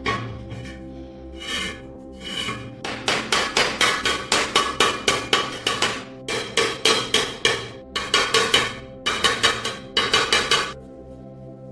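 Fast, repeated hand-tool strokes on metal, about six or seven a second, in runs of one to three seconds with short pauses between them. Soft background music plays underneath.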